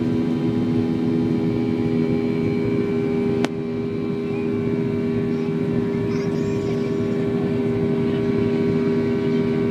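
Steady drone of an airliner's turbofan engines heard inside the cabin during the climb after takeoff, with several steady humming tones. A single sharp click about three and a half seconds in, after which the drone is a little quieter.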